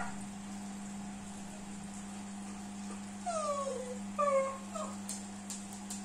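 A dog whining: two short falling whines a little past halfway, then a faint third, over a steady low hum.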